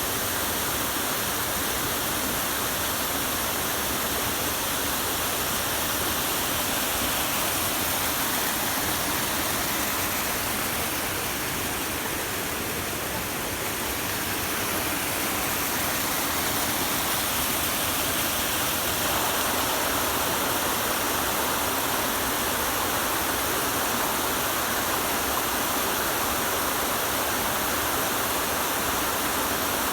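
Tsurugataki waterfall pouring, a steady rush of falling water.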